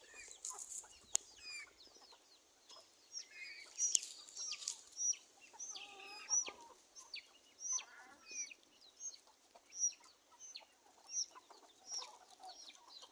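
Mixed-breed chickens clucking, with a high-pitched peep repeating about twice a second through the middle of the stretch.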